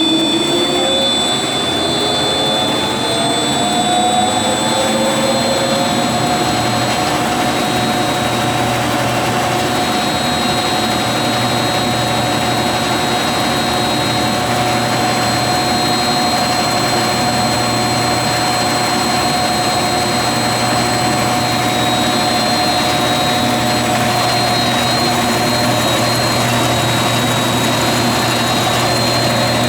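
Tannewitz vertical band saw running with no cut: its whine rises in pitch as it comes up to speed over the first several seconds, then settles into a steady hum and whine.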